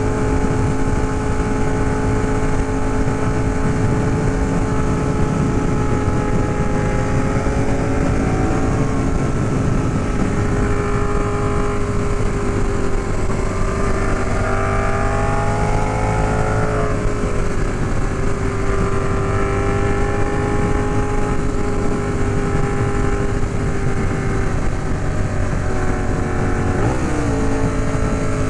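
Ducati Monster 821's Testastretta L-twin engine running at a steady cruising speed with wind rushing past; its pitch drifts slightly and dips briefly then recovers near the end.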